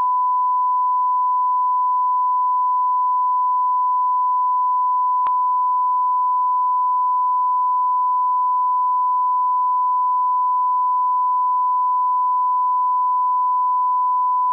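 Broadcast line-up tone: a steady 1 kHz sine tone sounding with the colour bars of a programme's test leader, held at one pitch and one level, with a faint click about five seconds in.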